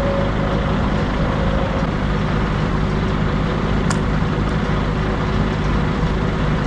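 An engine running steadily at a constant low speed, with one short sharp click about four seconds in.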